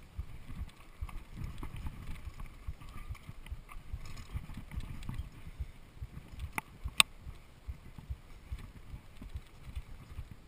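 Mountain bike rattling and jolting over dirt, roots and rocks on singletrack, a steady run of low knocks, with two sharp clicks in quick succession a little past halfway.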